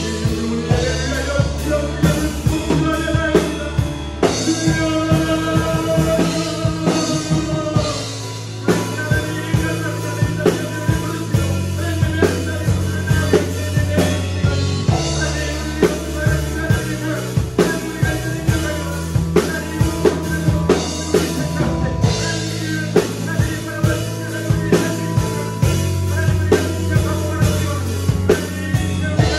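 Acoustic drum kit played along to a recorded worship song with singing, the drums keeping a steady beat of regular hits under the held chords and voice.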